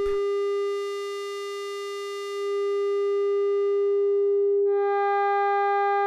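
Mutable Instruments Tides v2 running as an audio-rate oscillator: a steady tone at one pitch whose timbre shifts as the shape knob sweeps through its wavetable shapes. It turns thin and nearly pure about a second in, then brightens again, with strong overtones near the end.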